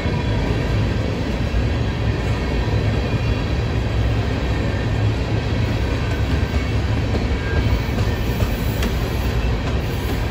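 Freight train of covered hopper cars rolling past at close range: a steady rumble of steel wheels on the rails.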